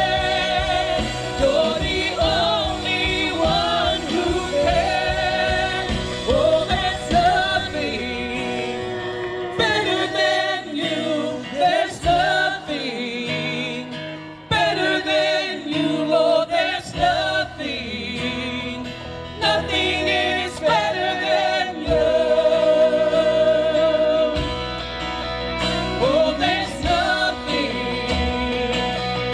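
Church worship team singing a gospel worship song with live band accompaniment, the voices held and wavering over the band. The bass end drops away for a few seconds in the middle and comes back in strongly later.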